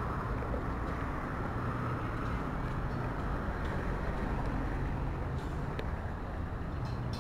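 Steady low rumble of running engines, with a faint hum underneath and no clear change.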